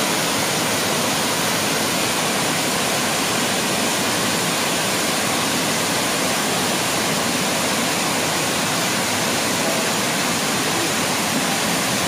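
Waterfall cascading down steep rock, a steady, even rush of falling and splashing water.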